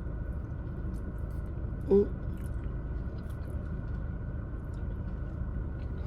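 A person chewing a mouthful of loaded carne asada fries with cheese and guacamole: faint wet mouth clicks over a steady low background hiss, with one brief vocal sound about two seconds in.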